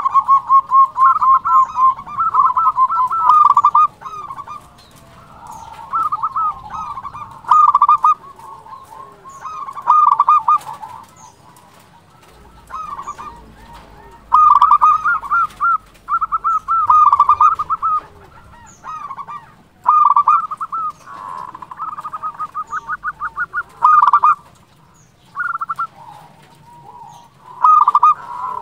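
Local-strain zebra dove (perkutut) singing: loud phrases of quick rippling cooing notes, each one to four seconds long, repeated with short pauses between. Faint high chirps sound above it.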